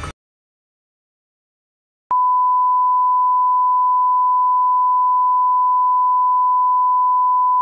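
After about two seconds of silence, a steady 1 kHz sine test tone starts abruptly and holds: the line-up reference tone played with broadcast colour bars.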